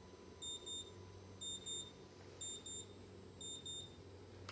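High electronic beeps in quick pairs, about one pair a second, four pairs in all, over a faint steady low electrical hum.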